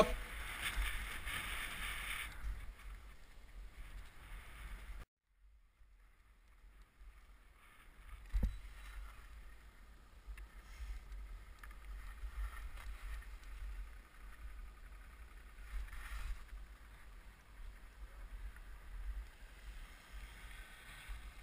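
Faint, uneven wind rumble on the microphone with a light hiss, broken by a short gap of near silence about five seconds in, and a single thump about eight seconds in.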